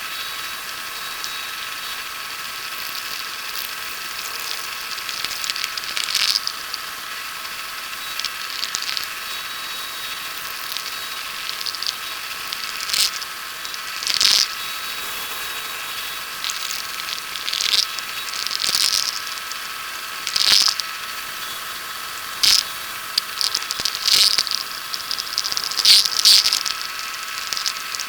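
Antique wood lathe running with a steady hum while sandpaper is pressed against the spinning wooden wand, giving repeated short scratchy hisses.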